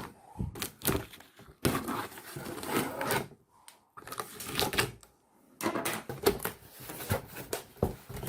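Cardboard shipping box being cut along its tape and opened by hand: irregular scraping, tearing and rustling of cardboard in several bursts with short pauses.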